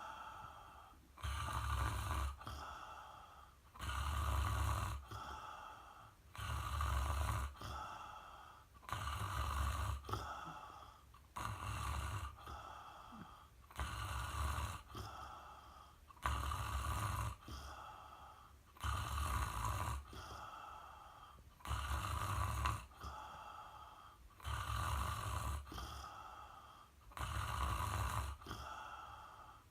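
A pet ferret snoring loudly in its sleep, one breath about every two and a half seconds, each a loud snore followed by a softer one.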